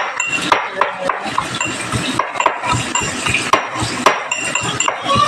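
Ginger and garlic being pounded to a paste in a small steel bowl: repeated knocks of the pestle on the bowl, about three a second, each with a short metallic ring.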